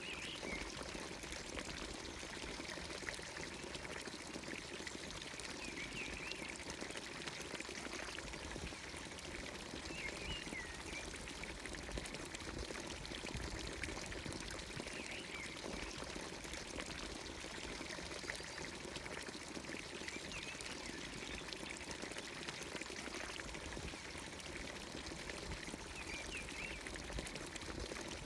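Water pouring steadily from a village fountain's spout into its trough. Short bird chirps come through every few seconds.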